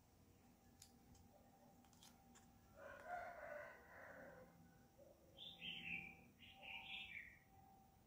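A rooster crowing faintly in the distance about three seconds in, then two short high calls that fall in pitch.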